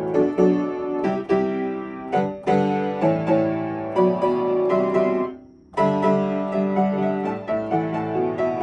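Upright piano played solo, melody over chords. About five seconds in the playing stops for half a second, then picks up again.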